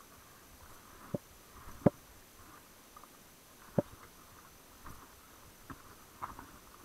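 A mountain bike knocking and rattling as it rolls over roots and bumps on a dirt trail: three sharp knocks, then a few fainter clicks.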